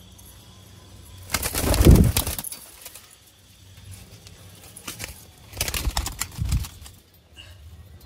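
Pigeons flapping their wings, in two bursts about a second long each, the first louder than the second.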